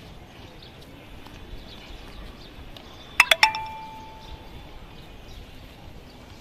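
Outdoor background hum with faint high chirps. About three seconds in, a bell rings three quick dings, and one tone rings on for about a second.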